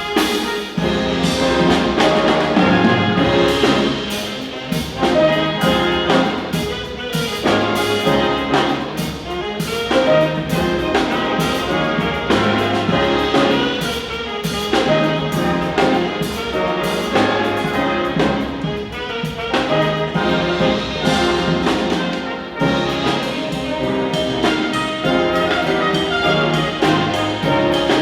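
A high school band playing live, with brass (trumpets and trombones) carrying the melody over a steady beat.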